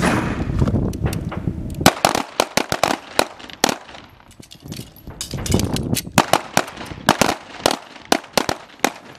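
Several pistols firing at once along a firing line: after a low rumble, many sharp reports begin about two seconds in. The shots come irregularly and often overlap, then thin out near the end.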